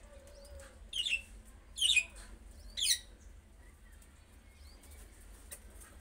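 Budgerigars giving three loud, short chirps about a second apart, each sweeping down in pitch, with faint softer chirps around them.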